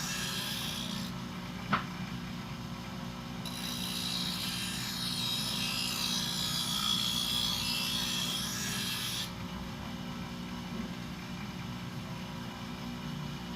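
Bench grinder running steadily while a steel thickness planer blade is pressed against the wheel, giving a high grinding hiss in two spells, the second about six seconds long. A single sharp click about two seconds in.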